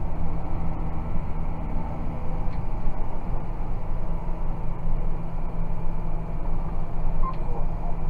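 John Deere 6190R tractor's six-cylinder diesel engine running steadily under load while pulling a plough, heard from inside the cab.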